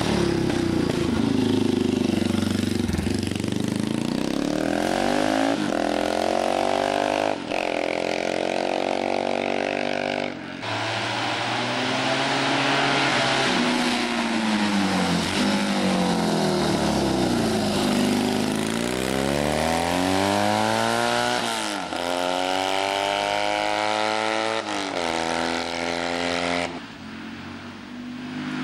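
Racing motorcycles accelerating hard past one after another, each engine's pitch climbing and then dropping sharply at every gear change. The sound falls away near the end.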